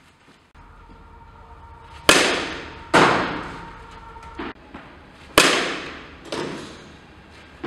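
Softball bat striking tossed balls twice, about 2 and 5.5 seconds in, each a sharp crack that echoes around a large hall, followed about a second later by another impact as the hit ball strikes the far end of the hall.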